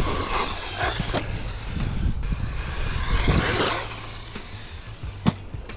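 Electric RC buggy running off-road: two surges of tyre and dirt noise as it accelerates, near the start and again about three seconds in, and a single sharp knock about five seconds in.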